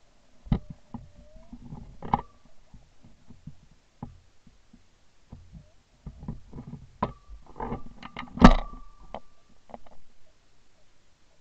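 Rustling brush and sharp knocks and clicks as a shotgun is swung through branches. The loudest knock comes about eight and a half seconds in. Thin, steady whistling tones come and go, the longest running from about seven to nine seconds in.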